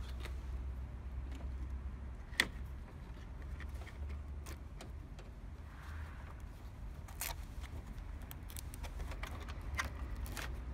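Scattered light clicks and rattles of plastic connectors and brittle cable insulation as a crumbling fuel-injection wiring harness is handled and lifted out, with one sharper click about two seconds in and a quicker run of clicks near the end. A low steady hum lies underneath.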